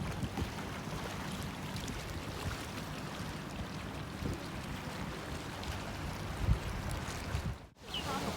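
Wind buffeting the microphone over a steady wash of waterside noise, with a stronger gust about six and a half seconds in and a brief dropout of all sound near the end.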